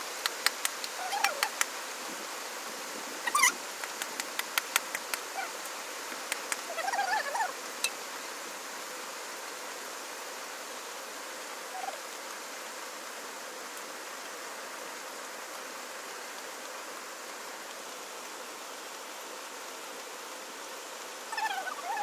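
Plastic sheeting crackling and clicking in quick, sharp bursts for the first several seconds as a pig carcass is handled on it, over a steady hiss. A few short animal calls come through in the first half.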